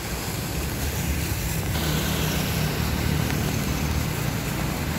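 Steady noise of a moving vehicle: engine and road rumble with no distinct events.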